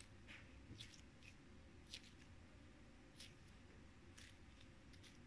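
Faint, brief squelches and clicks of Play-Doh and shaving-foam slime being worked between the hands, about half a dozen over near silence.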